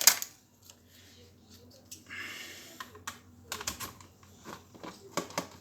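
Scattered plastic clicks and taps from a Logitech wireless keyboard being handled and unscrewed with a screwdriver. There is a brief scraping sound about two seconds in and a quick run of clicks near the end.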